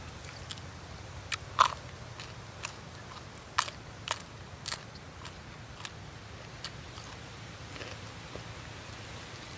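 Close-up mouth sounds of a person eating chicken: a string of short, wet smacks and crunchy bites, most of them in the first seven seconds, the loudest about a second and a half in.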